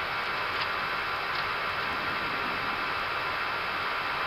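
Steady rushing noise of an Airbus A320 flight deck in climb, the even hiss of airflow and air conditioning, with two faint clicks in the first second and a half.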